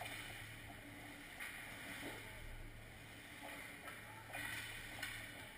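Hockey skates hissing and scraping on the ice in short spells, over a steady low hum in the rink.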